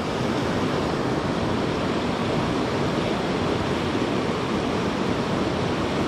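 Steady rush of a mountain river running high and swollen.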